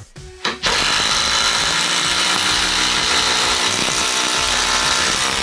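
DeWalt Atomic DCF850 cordless brushless impact driver driving a long screw into stacked 2x4 lumber, hammering steadily under load. A short burst comes first, then it runs continuously from just under a second in.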